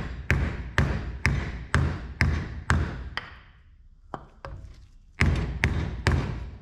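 Hammer blows on a wooden block laid over a bearing, tapping a press-fit ball bearing into a John Deere 425 mower deck spindle housing. A steady run of sharp knocks, about two a second, breaks off a little before halfway, gives way to two lighter taps, then three more blows near the end.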